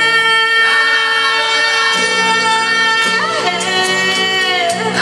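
A woman singing one long held note into a handheld microphone, amplified through PA speakers, over instrumental accompaniment. The note holds for about four and a half seconds, and a lower accompaniment part comes in about two seconds in.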